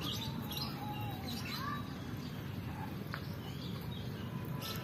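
Small birds chirping and tweeting in short, scattered calls over a steady low background noise.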